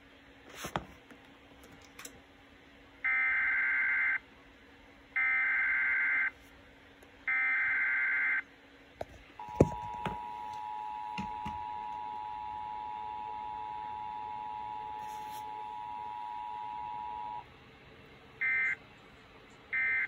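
Emergency Alert System activation for a flood warning: three roughly one-second bursts of the SAME header's screeching digital data, then the EAS two-tone attention signal held steady for about eight seconds. Two short data bursts come near the end, with a few handling clicks.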